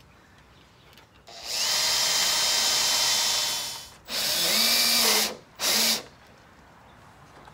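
Cordless drill drilling into a wooden rail. It runs in one long burst of about two and a half seconds, then a shorter run, then a brief final burst.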